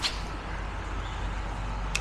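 Steady rush of creek water, with a sharp swish right at the start and a short sharp click just before the end.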